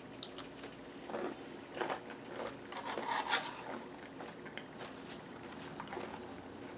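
Close-up chewing of a mouthful of crunchy granola in yogurt, with a run of crackly crunches in the first few seconds. Later a spoon scrapes and clicks against the bowl while scooping the next bite.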